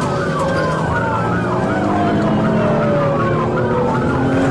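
Police car sirens going together: one on a fast yelp of about three rising-and-falling sweeps a second, the other a slow wail gliding downward, over vehicle engine and road noise.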